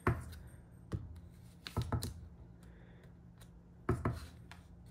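Clear acrylic stamp block tapping on a black ink pad and pressed onto cardstock on the desk: a string of sharp taps and clicks, one at the start, one about a second in, a quick cluster around two seconds in and a pair near the end.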